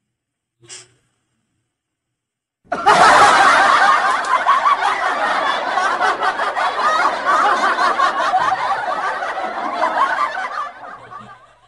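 Laughter that starts suddenly about three seconds in, runs on densely and unbroken for about eight seconds, then fades out near the end.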